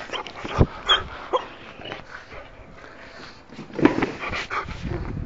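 Excited Bernese mountain dog making short vocal sounds in greeting, several in quick succession about four seconds in, with a few thumps as it presses against the camera.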